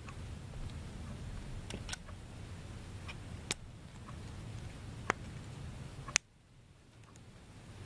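Hard plastic K'nex pieces clicking as they are pulled apart and handled: a few sharp separate clicks over a low steady hum. The loudest click comes about six seconds in, and the hum cuts out just after it.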